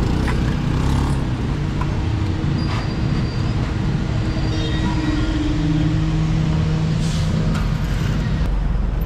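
Road traffic going past a roadside fuel stop: a steady engine rumble with a low hum that holds and shifts slowly in pitch, as vehicles drive by.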